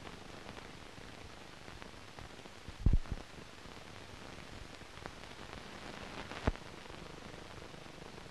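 Steady hiss and crackle of an old optical film soundtrack, with a short burst of loud pops about three seconds in and another single pop about six and a half seconds in. No aircraft engine is heard.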